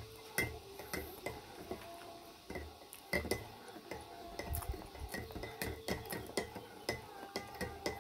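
Metal spoon stirring in a ceramic mug of tea, clinking against the sides in a quick, uneven series of light clicks.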